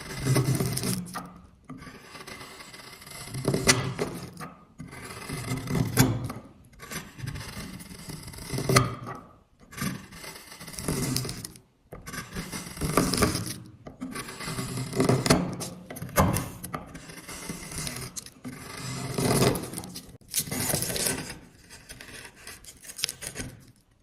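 A blade shaving wood in repeated scraping strokes, about one every one to two seconds, with short pauses between them.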